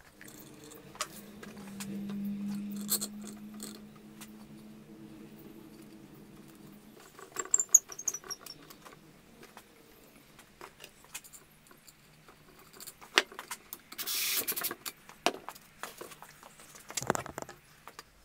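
Handling noises of turned wooden vase parts being fitted together on a threaded rod: scattered clicks, knocks and light scrapes, with a short hiss about two thirds of the way in. A low steady hum runs under the first several seconds, then stops.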